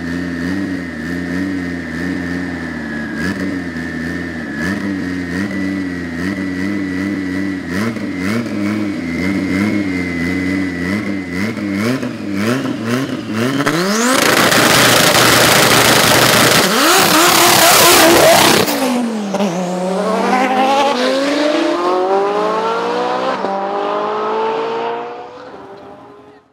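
Drag-race cars idling with a lumpy, wavering engine note, a steady high whine and scattered pops over it. About halfway through, an engine revs up and the cars launch at full throttle, the loudest part, then an engine pulls hard with its pitch climbing steadily before it fades out near the end.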